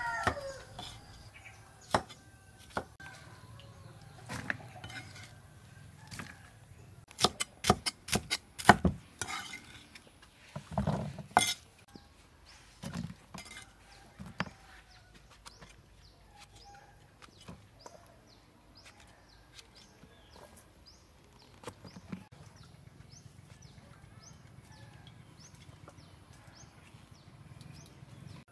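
Cleaver cutting cauliflower and other vegetables on a wooden chopping board: scattered knocks and taps, with a quick run of sharp strikes about seven to nine seconds in.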